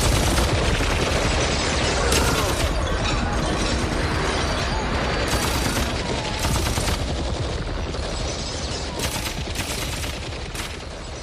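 Sustained rapid gunfire used as a sound effect on a song's outro: a dense, continuous volley of shots with louder bursts every second or two, slowly fading toward the end.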